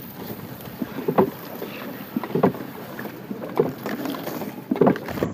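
A small wooden boat being rowed through the water, with a stroke about every second and a quarter.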